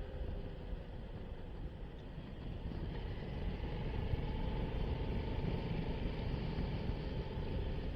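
Honda Transalp motorcycle cruising, its engine and the wind rushing past blending into a steady low rumble as picked up by a helmet-mounted microphone, growing slightly louder after about three seconds.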